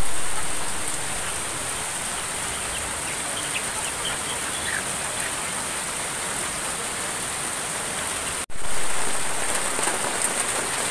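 Steady rain falling on rice paddies and leafy plants, an even hiss. It cuts out for an instant about eight and a half seconds in, then resumes slightly louder.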